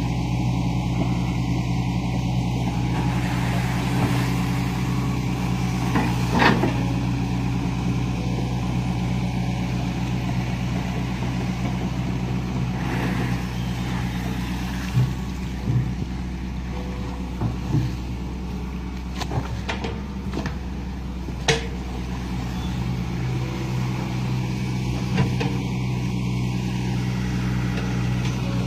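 Hitachi Zaxis 110MF excavator's diesel engine running steadily, with short sharp knocks and cracks a handful of times.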